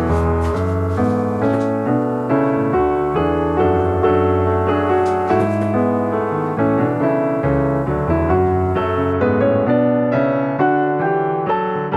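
Background piano music playing steadily.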